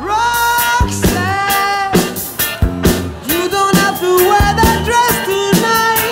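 Frenchcore electronic dance music: a melody over a fast, steady kick drum, coming in abruptly.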